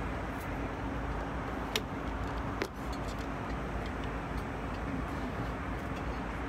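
Steady airliner cabin noise: an even rush of engine and airflow with a constant low hum, with two short clicks about two and three seconds in.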